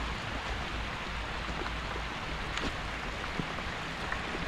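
Steady rushing noise with a few faint ticks.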